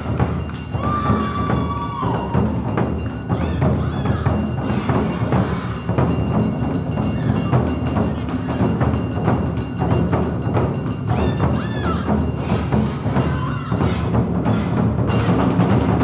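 Awa odori festival music: taiko drums and a clanging kane hand gong in a driving rhythm, with a shinobue bamboo flute holding a long high note about a second in.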